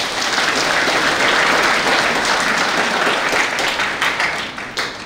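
Audience applauding, swelling quickly to full strength and then thinning out into a few scattered claps near the end.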